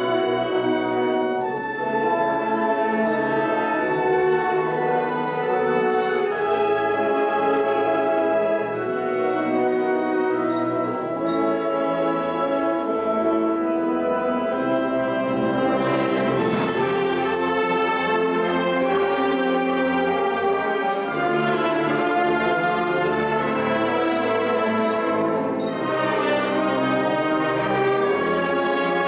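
A concert wind band of brass, woodwinds, percussion and double bass plays a sustained, full melodic passage with the brass to the fore. From about halfway through, the sound grows brighter, with repeated cymbal and percussion strokes over the held chords.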